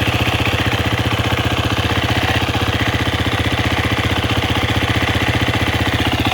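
2018 Husqvarna FE 250's single-cylinder four-stroke engine idling steadily, with an abnormal engine noise that the owner puts down, probably, to the timing (cam chain and valvetrain).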